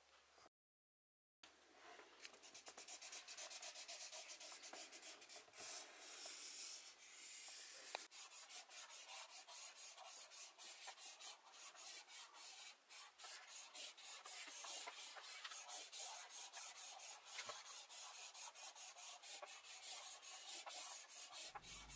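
Faint, rapid scraping strokes, several a second, going on steadily after a brief dropout to dead silence about a second in.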